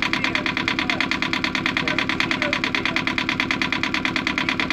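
Small inboard marine diesel engine running at a steady idle shortly after a cold start, with an even, rapid diesel clatter.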